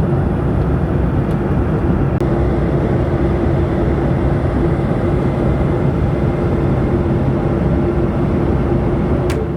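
Steady roar of engines and airflow inside the cabin of a Boeing 737-900ER airliner, with a constant hum underneath. Plucked guitar music comes in right at the end.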